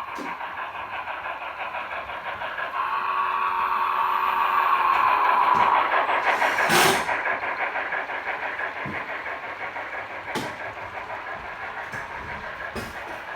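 HO scale model train running, a steady mechanical hum with a whine that gets louder toward the middle and then fades, with a few sharp clicks.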